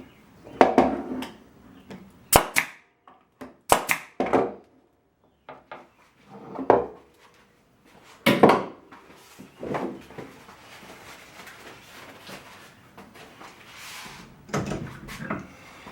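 Pieces of pine being knocked, pried and handled on a workbench: a string of irregular wooden knocks and clatters, with a few sharp clicks and a quieter rustling stretch in the middle.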